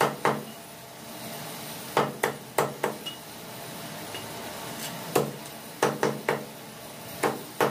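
Meat cleaver chopping a dressed chicken into pieces on a wooden log chopping block: sharp chops in quick clusters of two to four, with short pauses between, about eleven in all.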